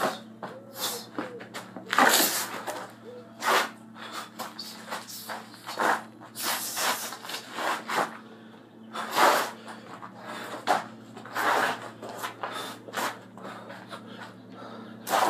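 Punches and kicks landing on a heavy bag at an irregular pace, a hit every second or two, with sharp exhales, over a steady low hum.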